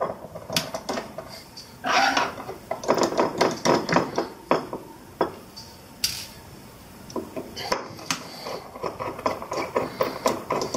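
Screwdriver turning Torx screws out of a desktop hard drive's metal top cover: runs of quick small metal clicks and scrapes, densest about two to five seconds in and again from about seven seconds.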